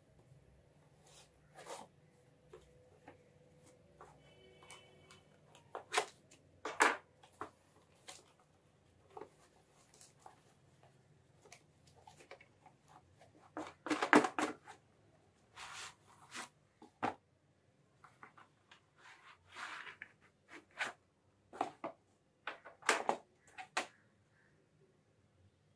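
Packaging being handled and opened by hand: scattered rustles, crinkles and taps of cardboard and plastic wrap, with the loudest bursts about halfway through and near the end.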